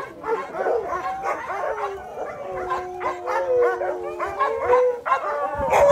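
A pack of chained husky sled dogs barking, yipping and howling at once, with one long held howl in the middle that rises in pitch at its end.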